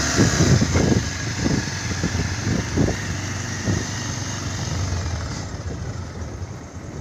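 Motorcycle engine running while riding a rutted dirt track, with a series of low thumps over the first few seconds as the bike jolts over the ruts. Wind hiss on the microphone drops away about five seconds in, and the overall sound eases off toward the end.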